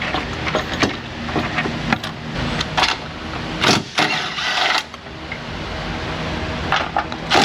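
Metal clanks and knocks of tools and engine parts being handled, about half a dozen, over a steady mechanical hum.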